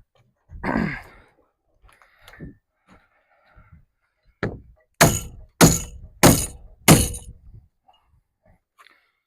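Wooden shipping crate being broken open: a board creaks as it is pried, then a light knock and four heavy blows on the boards, evenly spaced about half a second apart.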